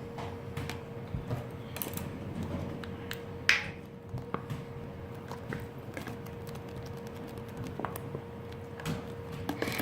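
Scattered light clicks and taps of slime-making supplies being handled, with one louder click and a short hiss about three and a half seconds in, over a faint steady hum.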